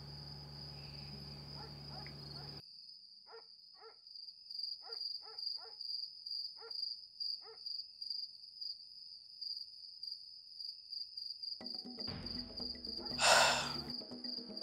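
Crickets chirping in a steady, high-pitched pulsing trill, with about seven short, faint calls scattered through the middle. Near the end a low music bed comes in and a loud breathy swoosh rises and falls.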